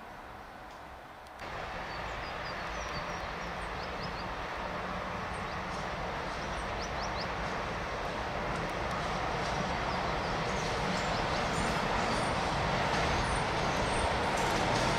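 Train running on rails: steady rolling noise that sets in suddenly about a second and a half in and slowly grows louder, with a few faint short high squeals.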